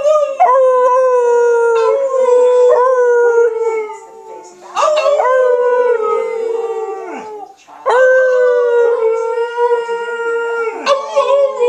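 Alaskan Malamute howling: about four long howls in a row, each starting a little higher and sliding slowly down in pitch, with brief breaks for breath between them.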